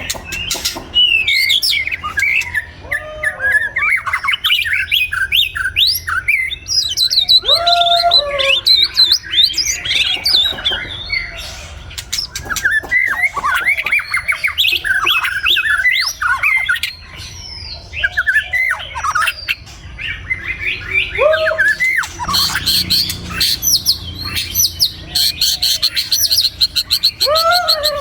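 White-rumped shama singing: a long run of varied phrases of rising and falling whistles, mixed with sharp clicking notes and harsh squawk-like calls, with a few lower rising whistles and a fast rattling trill near the end.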